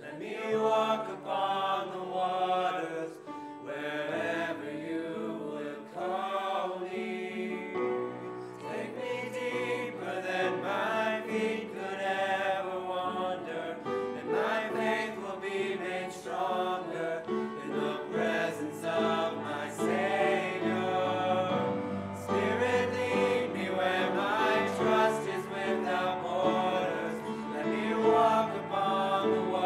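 Mixed young voices singing a slow contemporary worship song together, with instrumental accompaniment holding steady low notes underneath.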